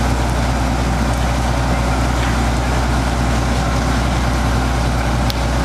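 A fire truck's engine runs steadily with a low, even hum, under a constant hiss from the hose stream and the fire. There is one short click near the end.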